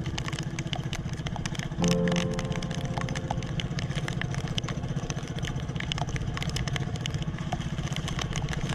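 Engine of a motorized outrigger fishing boat running steadily under way, a fast even pulsing, with soft piano music playing over it; a music chord comes in about two seconds in.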